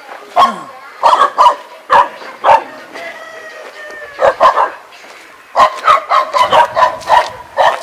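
A dog barking in short, sharp bouts: a few barks in the first couple of seconds, a pair a little after the middle, then a quick run of barks near the end.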